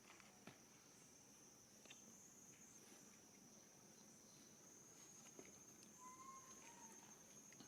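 Near silence, with insects trilling faintly in one steady high note and a few soft scattered ticks; a short faint call about six seconds in.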